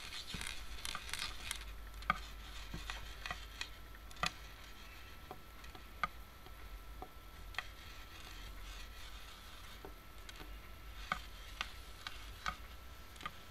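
Faint, irregular clicks and light taps from hands rolling a piece of clay into a ball, over a low steady hum.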